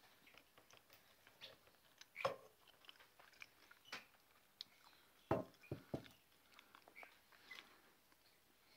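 Budgerigar nibbling at a cardboard edge: faint scattered small clicks and crunches, with a few louder ones about two seconds and five seconds in.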